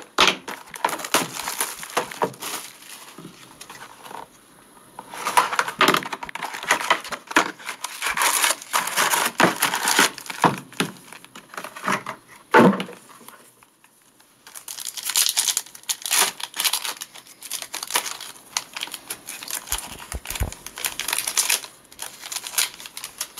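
Plastic wrapping and foil trading-card packs crinkling and being torn open by hand, in three long stretches of rustling with short pauses between.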